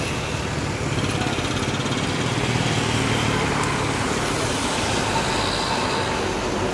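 Jet engine noise from a Boeing 777-300ER's twin GE90 turbofans as the airliner rolls out on the runway just after touchdown: a steady low rumble with a hiss over it, swelling a little about a second in.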